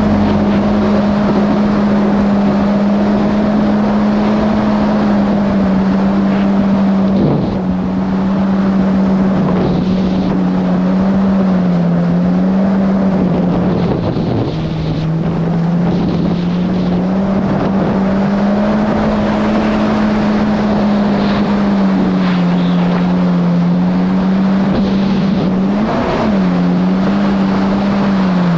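Yamaha GP1800R SVHO jet ski's supercharged four-cylinder engine running hard under way, holding a steady note that sags and recovers a few times, with wind buffeting the microphone.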